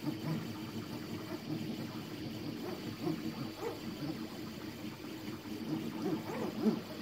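Anet A8 3D printer printing: its stepper motors whir in short, quickly rising and falling pitch glides as the print head moves and changes direction, over the steady whir of the hotend cooling fan.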